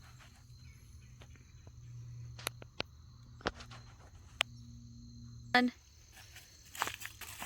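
Steady high insect trilling over a low hum, with a few sharp clicks in the middle and a loud knock about five and a half seconds in. Near the end, crunching footsteps on dry leaves and twigs.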